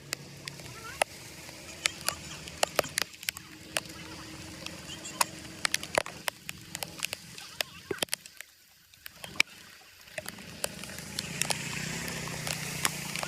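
Water sloshing and splashing, with many sharp clicks and knocks scattered through it and a quieter spell a little past the middle.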